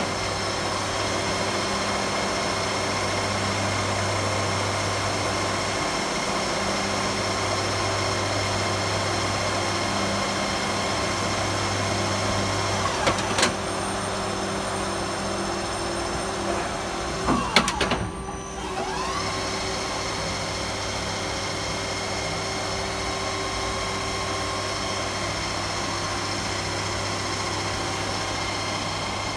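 Okuma-Howa 2SP-15H NC lathe running with a steady machine hum made up of several fixed tones. Brief knocks come about 13 seconds in and again about 17 seconds in, followed by a short drop and a rising whine as the machine comes back up to steady running.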